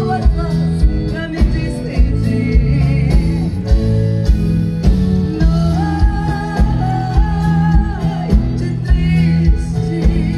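Live band music: a woman singing over acoustic guitar, accordion, bass guitar and drums, with a steady beat and one long held sung note in the middle.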